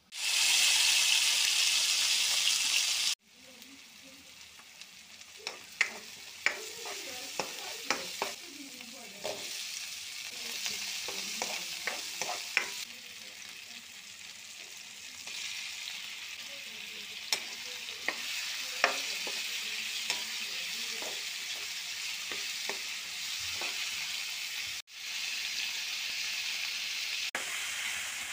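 Spice seeds sizzling loudly in hot oil in a non-stick wok for the first three seconds. After a cut, chopped potatoes, tomato and onion frying more quietly while a spatula scrapes and clicks against the pan as prawns are added and stirred in.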